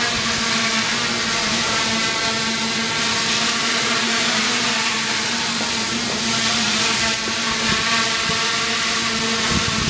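Quadcopter's electric motors and propellers buzzing steadily in flight, a hum of several tones whose pitch wavers slightly.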